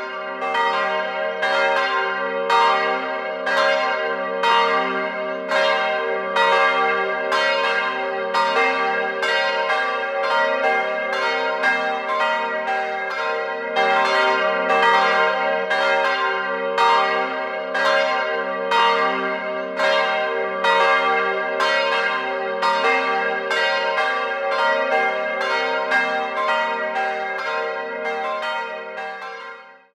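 Church bells ringing, several bells of different pitches struck in turn at about two strikes a second, each ringing on under the next; the peal is cut off just before the end.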